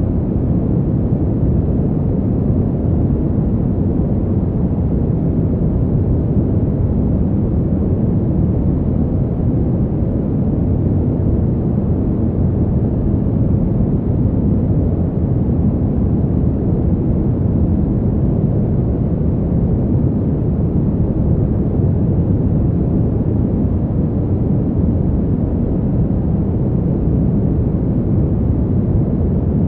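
Fan heater's blower running steadily: a continuous low whoosh of moving air, deep and rumbly, with little hiss in the highs.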